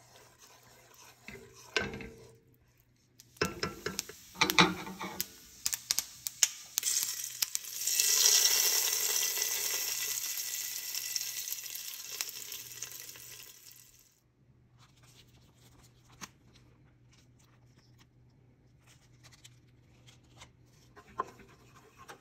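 A spatula clicks and scrapes against a metal pot of cooked spinach dal. Then a tempering of vadagam fried in hot oil is poured in from a skillet and sizzles loudly for several seconds, fading away. Faint stirring clicks follow.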